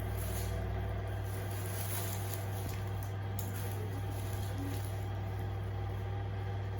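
A steady low hum with no change in pitch or level, with a few faint small ticks.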